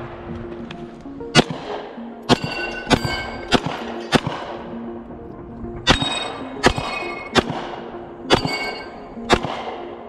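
A string of about ten gunshots fired in quick succession, spaced roughly half a second to a second apart, some followed by the brief ring of struck steel targets. Background music with sustained low notes plays underneath.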